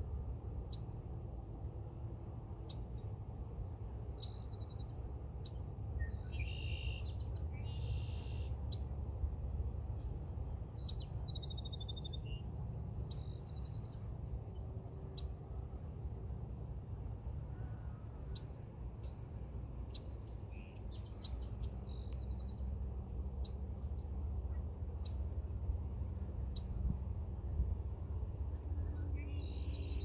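Outdoor nature ambience: an insect trill pulsing steadily throughout, with several short bird calls, over a steady low rumble.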